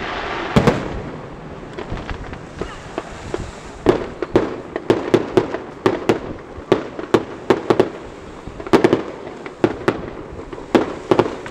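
Aerial firework shells bursting in quick clusters of sharp bangs, with a dense hiss of noise in the first second.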